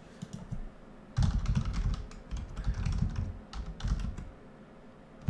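Typing on a computer keyboard: a quick run of keystrokes starting about a second in and stopping shortly before the end, with a couple of lighter clicks at the very start.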